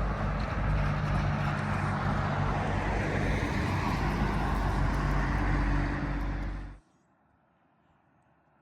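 Heavy vehicle passing close, with a loud steady engine drone and road noise, cut off abruptly about two seconds before the end, leaving only faint background.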